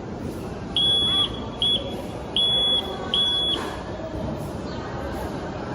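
High-pitched Morse code buzzer keyed four times, long, short, long, long (dah-dit-dah-dah, the letter Y in Morse). Each element is one steady beep, and the beeps stop about three and a half seconds in.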